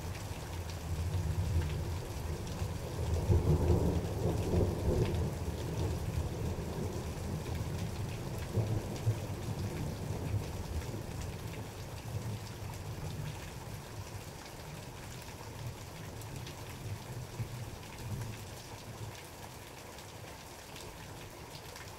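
Thunder rolling in a long, deep rumble that swells to its loudest about four seconds in and then slowly fades, over steady rain.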